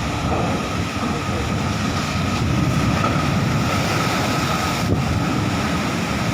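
Steady low rumble of a ferry underway, with wind on the microphone and sea noise, and a constant faint whine over it.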